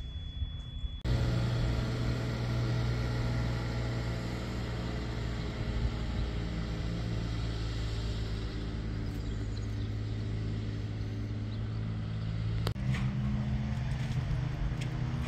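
An engine running steadily at a constant speed, a low even hum that starts about a second in and steps slightly in pitch near the end.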